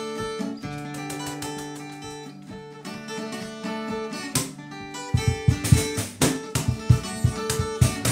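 Band playing live: an acoustic guitar picks a repeated figure, and about five seconds in a low, steady drum beat comes in under it.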